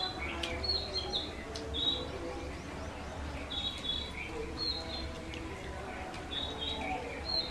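Birds chirping: short, high chirps repeating every second or so, with a few soft clicks of eating with the hands and chewing underneath.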